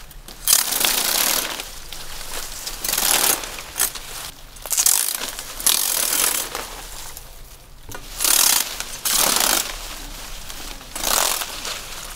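A blade cutting and tearing through dry coconut palm material in a run of rasping strokes, about seven of them, each under a second long, with short pauses between.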